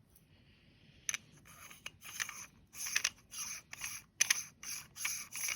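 Metal parts of a hand coffee grinder being twisted and handled, scraping against each other in short strokes that start about a second in and come about twice a second.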